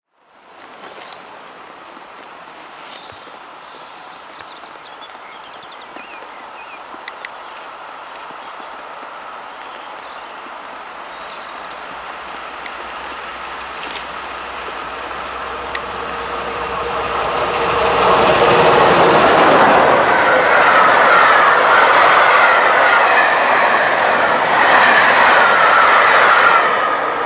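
Peppercorn A1 Pacific steam locomotive 60163 Tornado and its train approaching and passing, drifting down the gradient rather than working hard. The sound grows steadily, is loudest as the engine goes by about eighteen seconds in, and the coaches' wheels then run past on the rails.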